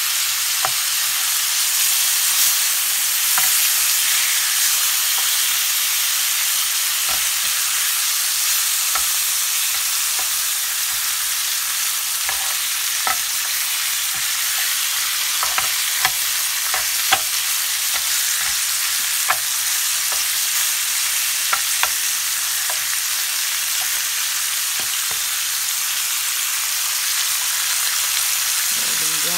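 Marinated pork chops sizzling in a ridged grill pan: a steady hiss, dotted with scattered sharp pops and clicks.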